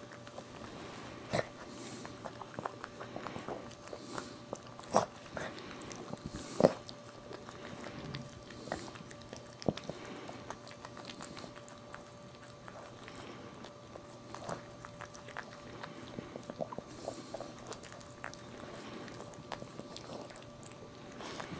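Maltese mother dog licking and mouthing her newborn puppy to clean it: irregular wet licking clicks and smacks, a few of them louder.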